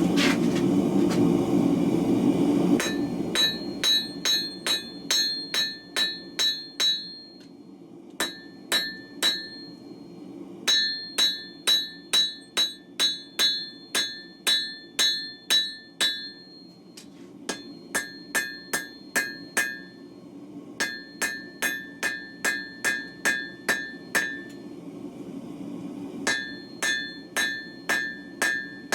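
Hand hammer striking hot W2 steel on an anvil in runs of blows, about two to three a second, each blow leaving a bright ring, with short pauses between runs. For the first few seconds a steady low roar sounds under the blows.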